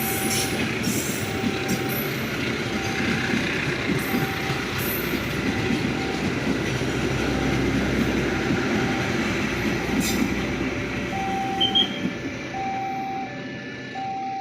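Train running past at close range, a steady rumble of wheels on the rails, while a level-crossing warning alarm beeps with a short tone about once a second. The train noise fades near the end, leaving the crossing alarm's beeps, which change to a pattern of alternating pitches.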